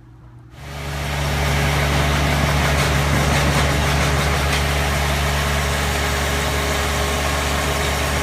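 Ditch Witch site machine's engine running steadily with a deep, even hum, cutting in abruptly about half a second in.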